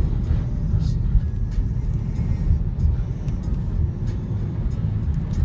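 Heavy wind buffeting the microphone as a loud, steady low rumble, with scattered faint clicks and rattles.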